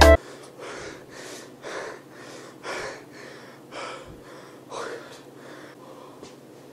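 A person breathing hard and fast: a run of noisy in-and-out breaths, about two a second, fading a little toward the end.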